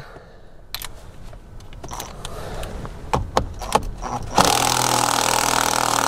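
A few clicks and knocks as a compact impact wrench is fitted onto the steering wheel's centre bolt. Then, about four and a half seconds in, the impact wrench starts hammering continuously and loud, working the tight, thread-locked steering wheel bolt loose.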